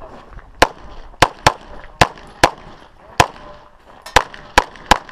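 Nine 9mm pistol shots from an EAA/Tanfoglio Witness Elite Limited Pro, fired quickly and unevenly, some in close pairs and some singly, the first about half a second in.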